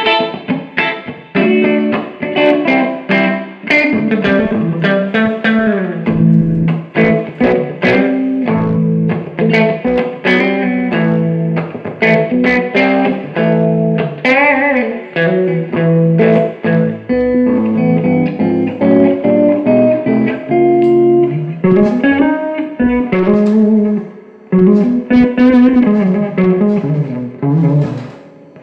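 Electric guitar played through a Fender Blues Junior valve combo amp: a run of picked single notes and short phrases with string bends, pausing briefly twice near the end.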